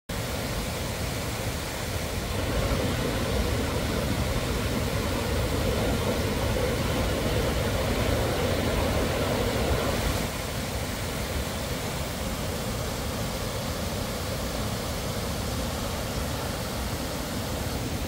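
Steady rushing of a waterfall's water cascading over rocky steps, dropping to a lower, steadier level about ten seconds in.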